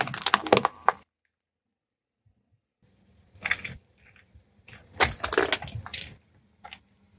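Car tyre crushing small objects: a dense burst of cracking and crunching in the first second, then after a short silence more cracking and snapping from about three seconds in as a plastic toy tractor breaks under the tyre.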